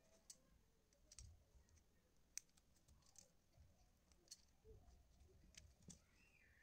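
Very quiet, irregular small clicks from hands working the stripped end of a coaxial cable, taking its white inner insulation off the copper centre conductor.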